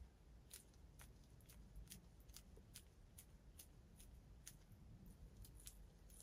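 Near silence broken by faint, irregular small clicks, a few each second: gloved fingertips working silicone lubricant into a small rubber gasket.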